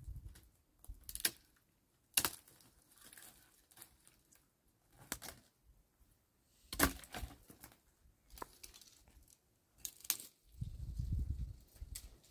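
Dry wood cracking and snapping in irregular sharp cracks, about one every second or so, with light rustling between them and a brief low rumble near the end.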